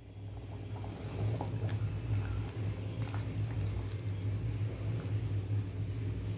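Kulambu simmering in a clay pot while a wooden spoon stirs it, with a few faint light knocks of the spoon against the pot, over a steady low hum.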